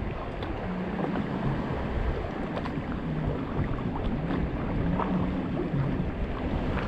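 Steady wind and water noise: wind on the microphone over waves washing on the shore.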